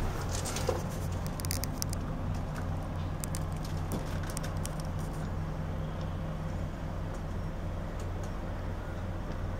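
Steady low engine hum with a regular throb, like an inboard marine engine idling, with a few light knocks and clicks near the start.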